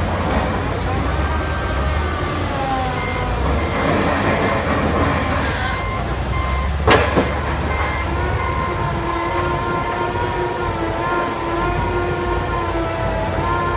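CZM EK200 rotary drilling rig running under load as its Kelly bar turns the auger down into the ground: a steady diesel engine rumble with a whine that wavers in pitch. There is one sharp clank about seven seconds in.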